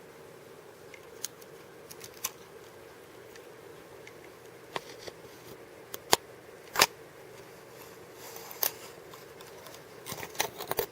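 Scattered sharp clicks and taps of small hard objects being handled, a few spread apart at first and a quick cluster near the end, over a faint steady hum.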